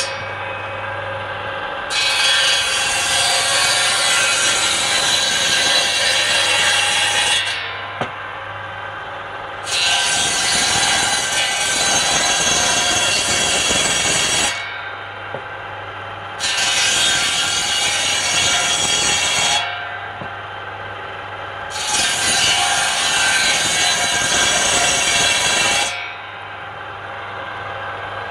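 Large bench-mounted circular saw ripping palm wood: four cuts of a few seconds each, the blade's sound rising loud as it bites into the wood. Between cuts the saw runs free with a steady hum.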